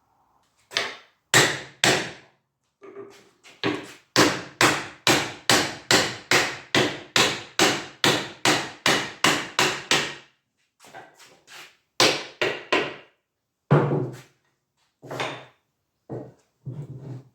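Hammer knocking on a wooden chair frame during disassembly. A few single blows come first, then a steady run of about three blows a second for several seconds, then scattered blows.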